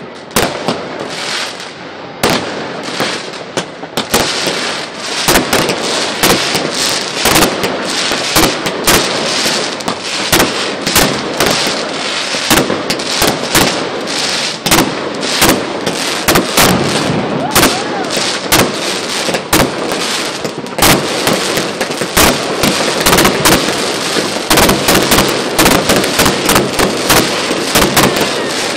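Fireworks going off in a dense, continuous barrage of bangs and crackles, many a second, growing heavier from about four seconds in.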